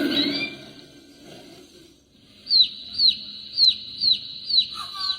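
A wake-up alarm lamp's speaker playing a bird-call alarm sound: six short, identical high chirps, each falling in pitch, evenly repeated about twice a second, starting about halfway through.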